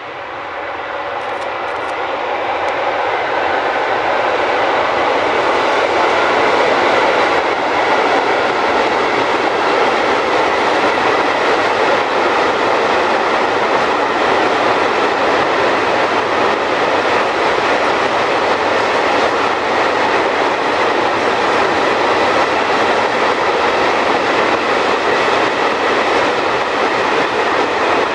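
Freight train of open wagons rolling across a concrete viaduct: the rumble of wheels and wagons grows louder over the first six seconds as the train draws near, then holds as a steady rolling noise while the long rake of wagons passes.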